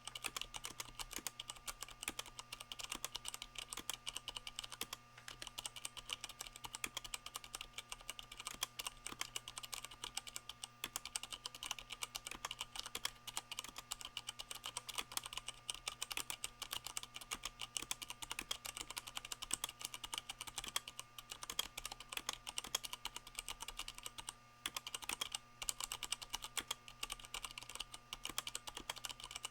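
Continuous fast typing on a Leopold FC660M mechanical keyboard with Cherry MX Brown switches fitted with O-rings, the O-rings damping the keycaps' bottom-out clack, with a few brief pauses.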